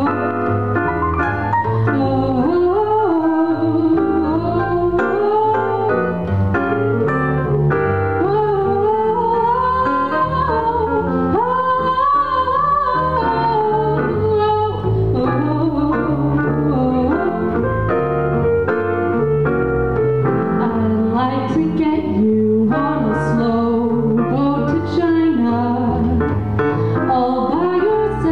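Live jazz trio: a female vocalist singing a melody, accompanied by a Nord Electro keyboard and an upright double bass.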